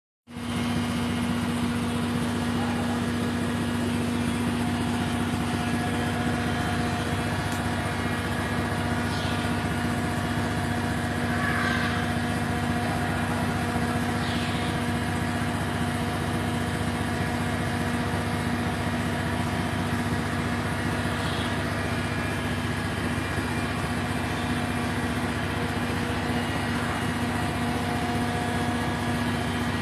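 A machine running with a steady hum and a constant low tone. It starts just after the beginning and holds at one level.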